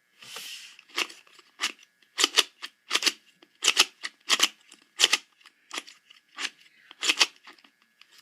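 Plastic mirror puzzle cube being turned by hand: a steady series of sharp clicks as its layers snap through turns, about one or two a second, after a short rub near the start.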